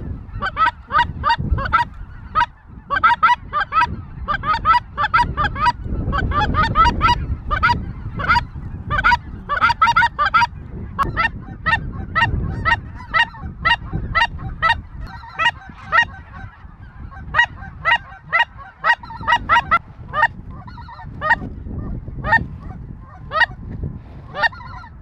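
A flock of geese calling overhead: many short, overlapping honks and cackles repeating quickly and without a break, over a low rumbling noise.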